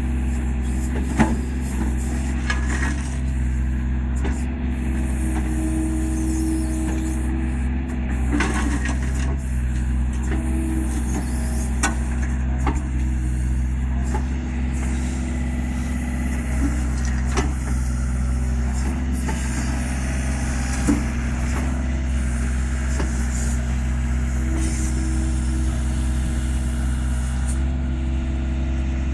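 Hyundai 55-7A mini excavator digging: its diesel engine runs steadily while the hydraulic tone comes and goes as the boom and bucket move. A handful of sharp knocks and clinks, the loudest about a second in.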